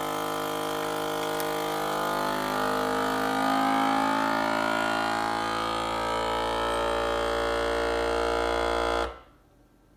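FoodSaver vacuum sealer's pump motor running with a steady hum, drawing the air out of a bag of meat. It cuts off suddenly about nine seconds in.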